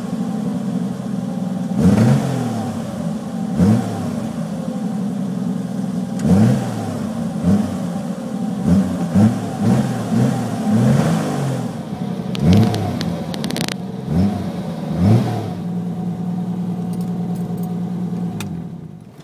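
Triumph GT6's straight-six engine idling with about a dozen quick throttle blips, each revving briefly and dropping back. It then settles to a steady idle before stopping near the end.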